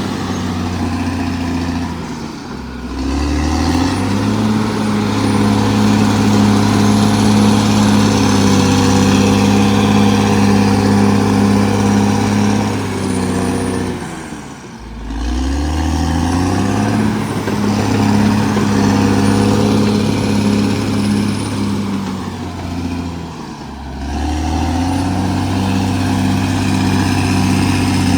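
Cat D6R XL bulldozer's diesel engine running hard, its pitch dropping sharply and climbing back three times, about two seconds in, around the middle and near the end.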